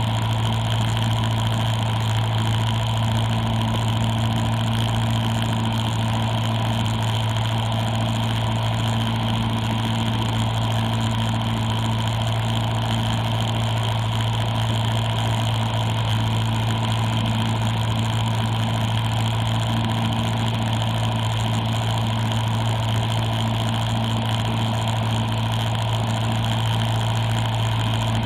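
Cessna 172's piston engine and propeller running at a steady, unchanging speed, a constant hum heard inside the cabin.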